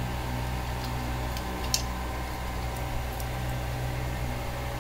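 Steady low hum, with a few small sharp clicks and taps, the clearest about two seconds in, as a utility knife and an opened vape pod with its battery are handled.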